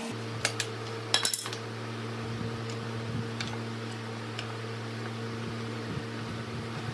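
Wooden slats clacking and knocking lightly against each other and the workbench as they are shifted into line, with a short cluster of clacks about a second in and a few softer taps after, over a steady low hum.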